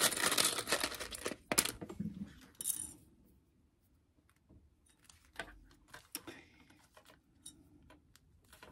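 Rustling handling noise for the first few seconds, then scattered light plastic clicks as sewing clips are put onto the edges of a vinyl ID holder.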